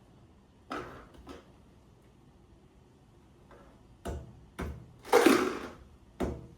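Homemade shakers filled with dry pasta, played as an A-A-B pattern: two short, quieter shakes followed by one louder, longer rattle, and the pattern starting over near the end. A couple of light shakes come about a second in.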